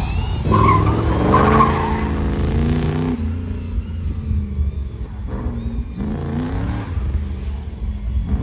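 Car engine revving up and down as it is driven hard through an autocross course, loudest in the first three seconds, with a brief squeal of tyres about a second in.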